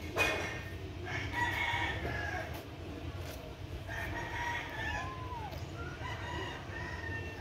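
Rooster crowing: several drawn-out calls over a low steady rumble.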